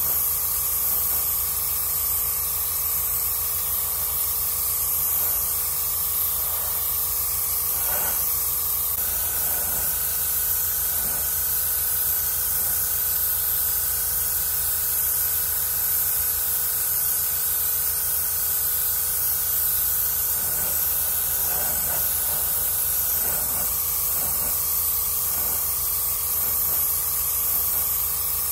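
Airbrush spraying acrylic paint in a steady hiss, over a steady hum whose pitch steps up about nine seconds in and drops back near the end.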